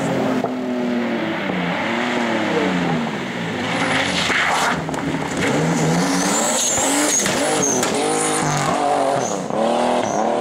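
BMW E30 rally car's engine revving hard, its pitch rising and falling again and again as the driver accelerates and lifts between the tyre-stack corners. The tyres squeal briefly about six seconds in as the car slides through the chicane.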